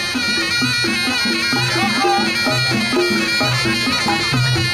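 Live Reog Ponorogo gamelan: a slompret, the reed shawm of reog, plays a continuous wailing melody over a repeating pattern of low gong and drum strokes.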